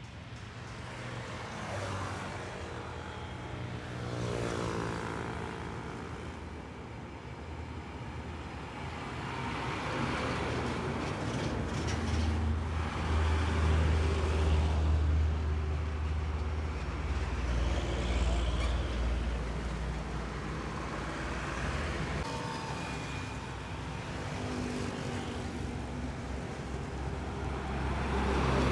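Heavy diesel trucks passing one after another on a road, engines and tyres rumbling. The deep engine rumble swells loudest in the middle and again near the end as the trucks go by.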